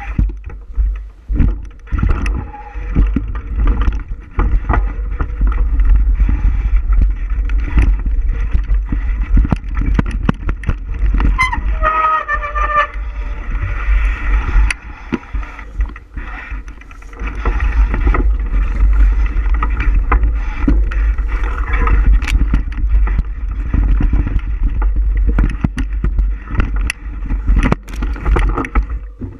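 Bicycle riding along a trail: wind buffeting the microphone, with the bike knocking and rattling over bumps throughout. About twelve seconds in there is a brief squeal lasting around a second.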